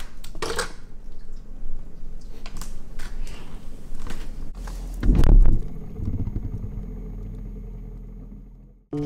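Handling noise at an open freezer: scattered clicks, knocks and rustles, with a heavy low thump about five seconds in, then fading away to silence near the end.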